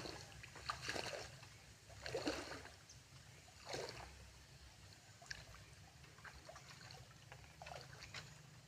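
Water splashing and dripping: a few irregular splashes in the first four seconds, then lighter drips and small splashes.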